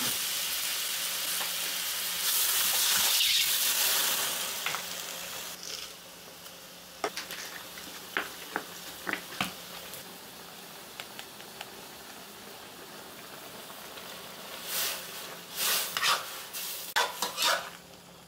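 Food sizzling in a hot metal wok, swelling to a loud hiss about two seconds in as water goes in, then dying down to a quiet simmer. A metal spatula scrapes and taps against the wok in scattered clicks, busier near the end.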